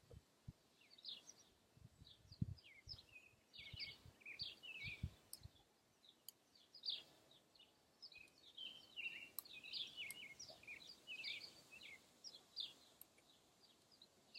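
Small birds chirping and twittering continuously, quiet and high-pitched, with soft low thumps in the first half.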